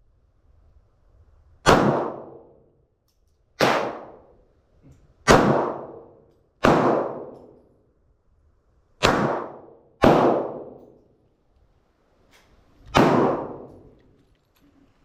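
Seven gunshots at uneven intervals, each ringing out and dying away over about a second before the next.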